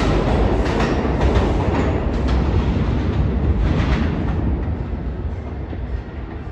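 New York City subway train running through the station with a heavy rumble, its wheels clacking over rail joints. The sound fades away over the last couple of seconds.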